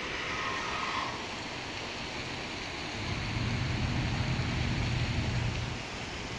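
City road traffic: a steady hiss of passing vehicles, with a low engine rumble of a double-decker bus growing louder about three seconds in and dropping away near the end.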